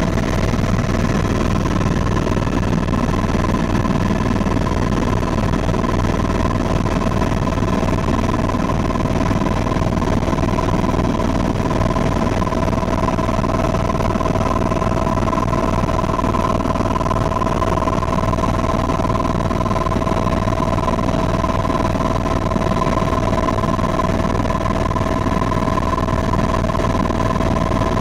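Helicopter in flight heard from inside the cabin: a steady engine and rotor drone with a constant whine that holds one pitch.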